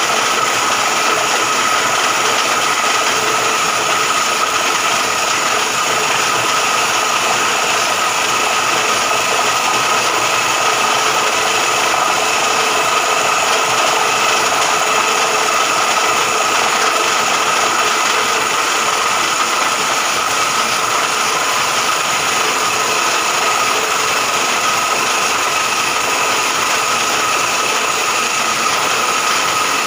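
Mini portable borewell drilling rig running steadily while boring a 1.5-inch well, with a constant whine over even mechanical noise.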